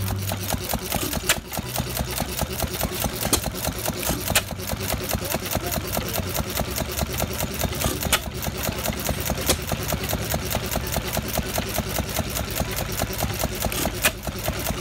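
Hit-and-miss stationary gas engine running: a fast, even mechanical clatter of about six ticks a second, with an occasional louder sharp crack every few seconds.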